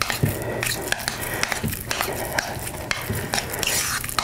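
Hands squishing and kneading a ricotta cheese and herb filling in a bowl, with irregular small clicks and knocks against the bowl, over a faint low hum.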